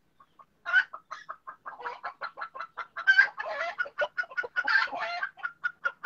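Chickens clucking in a quick, dense run of short clucks, starting about two-thirds of a second in.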